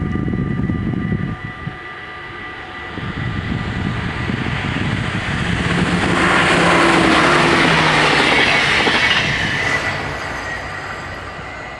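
An ICMm electric multiple unit passes over the level crossing. The wheel and rail noise builds to its loudest about six to nine seconds in, then fades. The crossing's warning bells ring steadily throughout.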